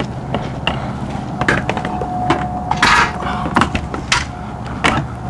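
Scattered knocks and clicks of hands working on a removed awning arm and its wiring, with a brief louder scrape or rustle about three seconds in.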